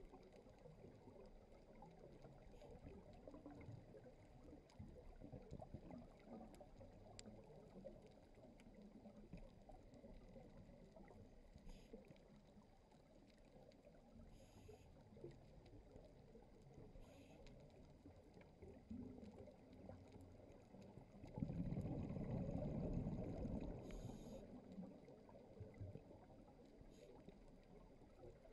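Faint underwater crackle and hiss heard through a GoPro's waterproof housing, with a louder burst of low rumbling bubbles about twenty-one seconds in that lasts about three seconds, typical of a scuba diver exhaling through a regulator.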